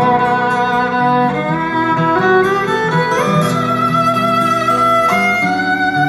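Instrumental break of a recorded song played back over small Panasonic speakers driven by a Tandberg 3006A power amplifier: a sustained lead melody over a steady accompaniment, the melody sliding up to a higher note about halfway through.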